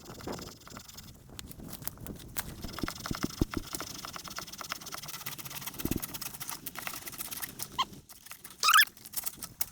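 Dry twigs and leaves crackling and rustling in dense, irregular clicks as a fallen tree branch is dragged over the ground, mixed with footsteps; a short high chirp comes near the end.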